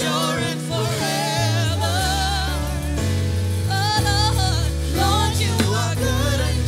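Gospel praise-and-worship music: a vocalist singing with vibrato over a steady instrumental accompaniment with sustained bass notes.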